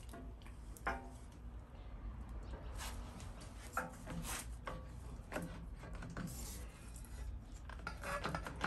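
Scattered light clicks, taps and brief rubbing of metal steering-column parts being handled and turned over on a workbench, over a steady low hum.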